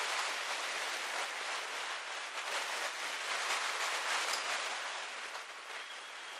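Loaded stone wagons rolling slowly over the rails: a steady noise of wheels on track with many faint clicks and rattles.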